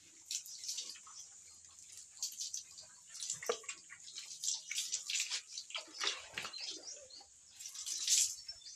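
Water poured from a plastic bottle splashing over piglets and onto a wet concrete floor in uneven splashes, loudest near the end.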